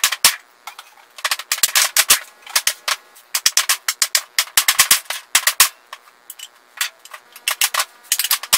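Rubber mallet striking a wooden chair frame in quick runs of sharp knocks, several a second with short pauses, driving the old dowelled joints apart where the glue has failed.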